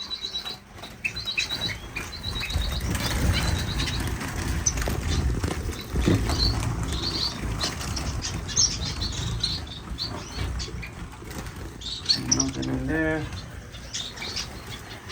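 Small cage finches fluttering and flapping their wings in agitation, with high chirping calls; a quick rhythmic run of chirps opens the stretch.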